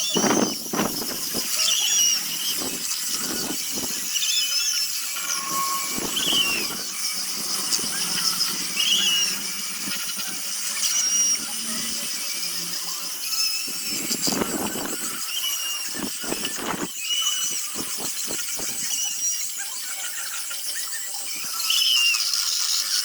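High-speed rotary sanding tool working a zelkova root: a steady high hiss with short squeals every second or two and uneven scraping strokes as the abrasive bites the wood.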